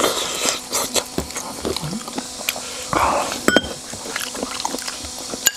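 People eating with chopsticks: scattered clicks and taps of chopsticks against porcelain bowls, and a short slurp from a bowl about three seconds in.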